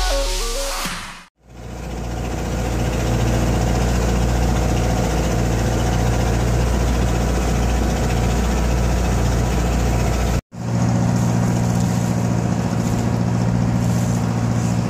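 A boat's engine running steadily. The sound breaks off briefly about a second in and again about ten seconds in, then resumes with a somewhat different, higher-pitched hum. Music fades out in the first second.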